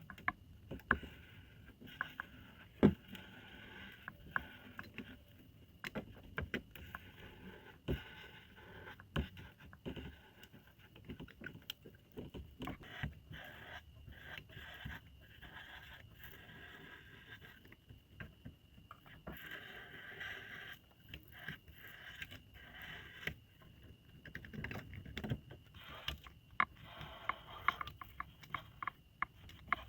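Irregular scraping with many sharp clicks and taps of tools working on plastic, over a faint steady high whine.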